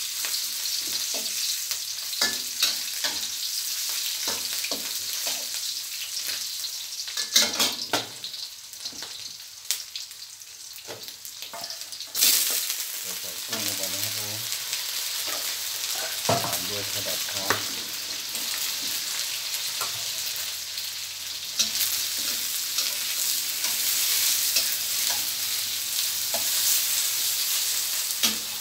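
Ginger frying in hot oil in a stainless steel wok, with a metal spatula scraping and clattering against the pan. About twelve seconds in, prawns go into the wok and the sizzle turns suddenly louder and stays loud.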